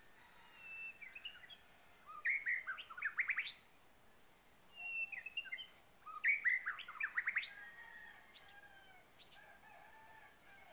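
A songbird singing two phrases a few seconds apart, each a short whistle followed by a quick run of rising notes. A few short chirps come after them near the end.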